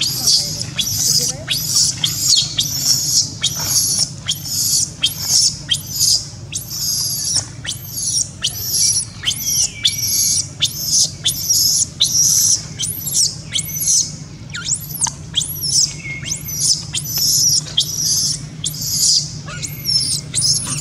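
Infant macaque crying: a continuous string of shrill, very high-pitched screeching calls, each rising and falling, nearly two a second without pause. These are a baby's distress cries for milk while it lies at its mother's belly.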